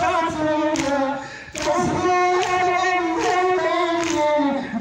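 An amplified Shia mourning lament (noha) sung as a drawn-out chant, with a crowd of mourners slapping their chests in unison a little more than once a second in time with it. The singing breaks off briefly about a second and a half in.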